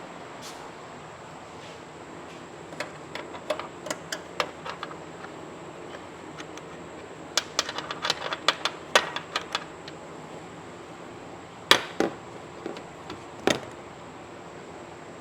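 Hand tools and parts clicking and tapping against car parts in irregular clusters, with a quick run of clicks in the middle and two sharper clicks near the end.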